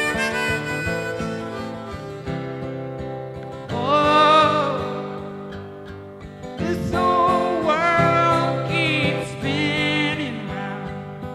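Live harmonica and acoustic guitar instrumental passage, the harmonica playing long wavering, bending notes over strummed guitar chords.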